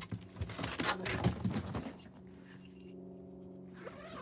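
A power-tool bag being handled: rustling and a metal jingle of its zipper pulls and hardware for about two seconds, then only a faint steady hum.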